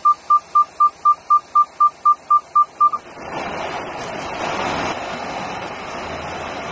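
An electronic warning beeper sounding a steady high beep about four times a second, stopping about three seconds in. After it, a vehicle moves off, running with a steady rushing noise.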